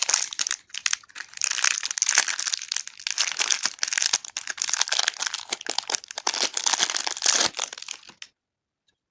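Plastic candy or surprise-toy wrapping crinkling as it is handled and unwrapped by hand, in a dense run of rustles and crackles that stops suddenly about a second before the end.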